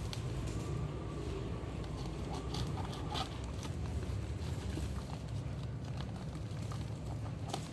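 Scattered light clicks and taps over a steady low rumble.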